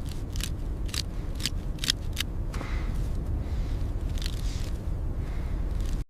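Footsteps crunching in deep snow, about two steps a second for the first two seconds and fainter later, over a steady low blizzard wind rumble. Both cut off suddenly near the end.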